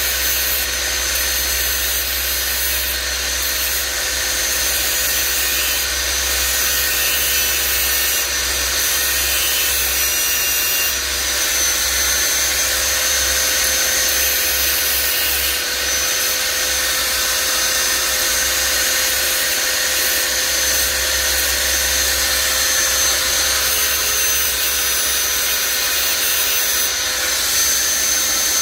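Handheld mini grinder running steadily with a constant high whine, cutting into the plastic headlight housing.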